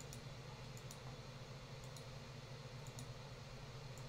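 Faint computer mouse clicks, about one a second, as parts are selected one by one, over a steady low hum.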